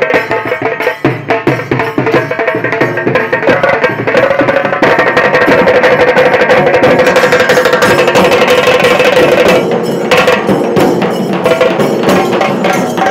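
A band of hand-carried drums plays fast, dense drumming, with a large drum and smaller drums beaten together. From about five seconds in, a long held note sounds over the drumming.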